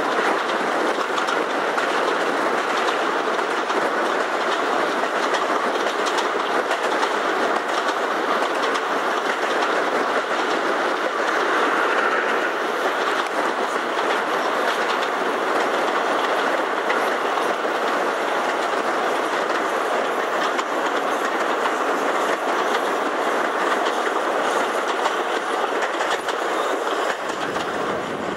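Steady rush of wind and wheel-on-rail noise from a passenger coach running at speed, heard from an open carriage window.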